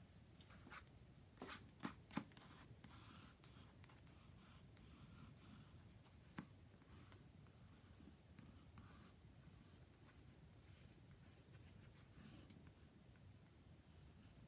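Water-soluble graphite pencil sketching on dry sketchbook paper: faint, scratchy pencil strokes that come and go. A few louder clicks come about two seconds in, and one more near the middle.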